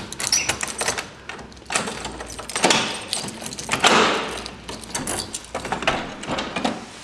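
A jumble of clicks, rattles and rustling from objects being handled, with louder rustling surges about two, three and four seconds in.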